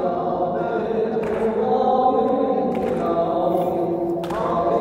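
Unaccompanied chanting of a Muharram mourning elegy (noha) for Imam Hussein, with long drawn-out held notes between the sung lines.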